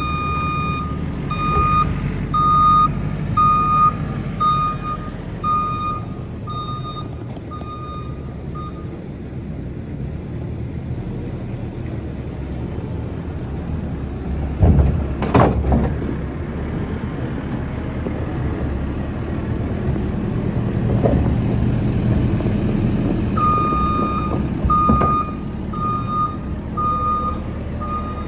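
JCB loader's diesel engine running while its reversing alarm beeps, a single high tone about one and a half times a second, for the first nine seconds and again near the end. About halfway through comes a loud scraping clatter of the steel bucket on the muck-covered floor.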